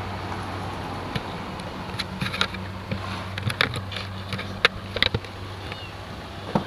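Stationary car with its engine idling, a steady low hum, with a run of light clicks and taps over it through the middle.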